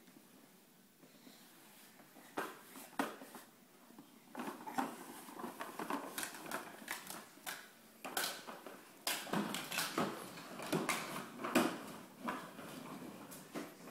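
Plastic ride-on toy tractor clattering and rattling as a toddler rides it across the floor. Quiet for the first couple of seconds, then an uneven run of clicks and knocks that grows busier from about four seconds in.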